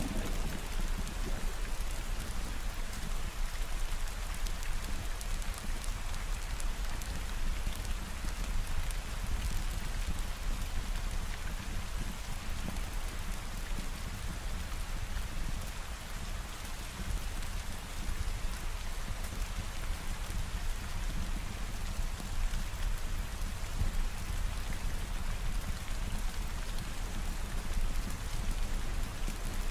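Steady, even rain falling, with a low rumble underneath.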